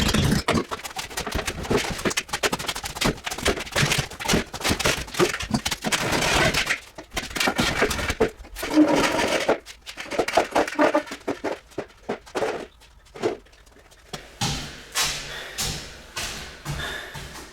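Irregular knocks, clatter and scraping of hand work, with a quieter stretch a little past the middle.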